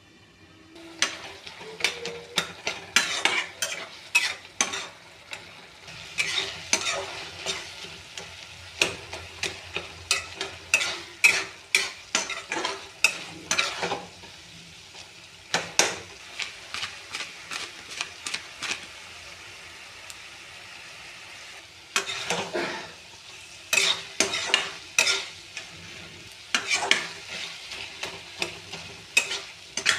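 Tomato chutney frying in a pan, a steady sizzle under repeated scrapes and clinks of a spoon or spatula stirring against the pan. The stirring starts about a second in and pauses for a few seconds past the middle.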